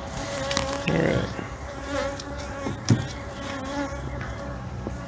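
Honeybees buzzing around an opened hive: a steady hum of several overlapping pitches. A rustle about a second in, as the bee brush sweeps bees off the honey frame, and one sharp knock near the middle.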